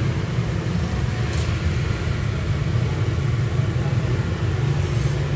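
Steady low rumble of motorbike traffic and street noise.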